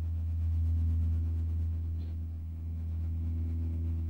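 Ambient background music: a low sustained drone that slowly swells and fades in level.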